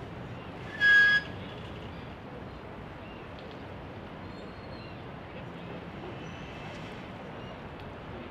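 Steady background hum of city traffic by a river. About a second in comes one short, loud, high-pitched sound with a clear pitch.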